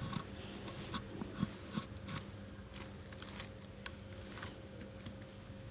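Close-miked chewing of watermelon: faint, irregular wet crunches and small mouth clicks.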